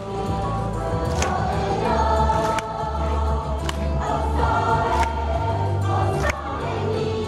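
Music with voices singing together over a steady bass, with a light beat about every second and a quarter.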